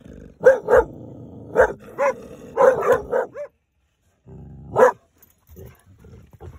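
A dog barking from inside a car at other dogs seen outside. A quick run of sharp barks comes over the first three seconds or so, then a short pause, then a single bark about five seconds in.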